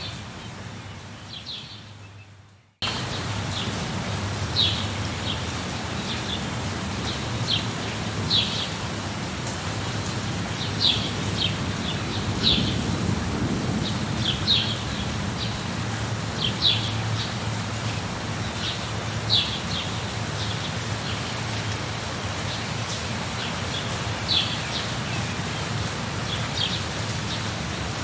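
Steady rain with birds chirping in short, high calls scattered throughout, and a low rumble of thunder swelling around the middle. The sound fades away over the first couple of seconds, then cuts back in suddenly.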